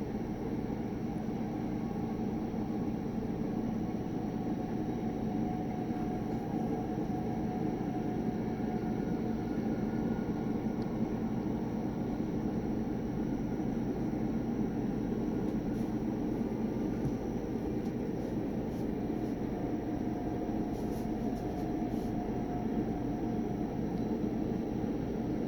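A CSX freight train rolling past with a steady, low rumble that does not rise or fall.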